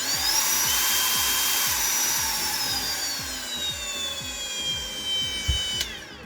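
Makita DGA511 18 V brushless cordless angle grinder running without load: its whine rises as it spins up, holds, then falls steadily as the motor winds down, cutting off near the end. There is a knock shortly before it stops.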